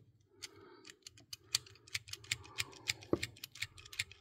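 Light, irregular metallic clicks and taps of hand pliers being handled and worked, several a second, with a slightly louder clack about three seconds in.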